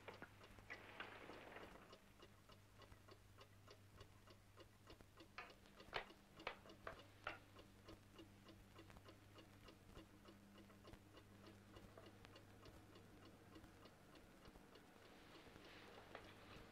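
Near silence: a faint clock ticking steadily, over a low steady hum. A few sharper clicks stand out about halfway through.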